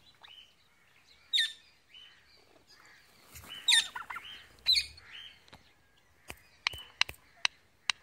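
Parrots calling: three short, sharp chirps that drop steeply in pitch, about a second and a half, three and a half and four and a half seconds in, followed by a few faint clicks.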